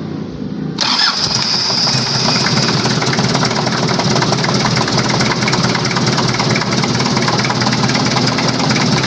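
Freshly rebuilt 1991 Daihatsu Taft GT diesel engine running at idle with a fast, even diesel clatter as it warms up after its first start. It becomes louder and sharper about a second in.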